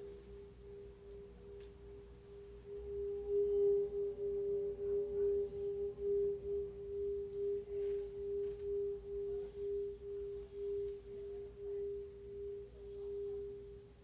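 A steady, pure-sounding ringing tone pulsing slowly about one and a half times a second, with fainter higher tones above it. It swells louder about three seconds in and drops away abruptly at the end.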